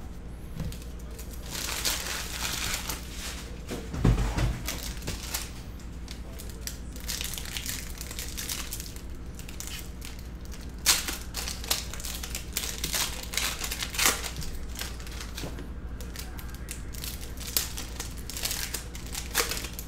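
Foil trading-card pack wrappers crinkling and crackling in irregular bursts as packs are opened and the cards handled, with a dull thump about four seconds in.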